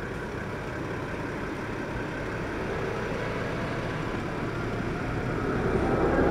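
A heavy vehicle's engine running steadily with a low hum, growing louder near the end.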